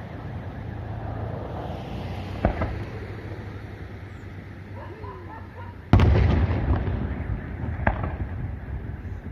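Fireworks shells bursting: a bang about two and a half seconds in, a much louder boom about six seconds in with a trailing rumble, and a smaller bang near the end.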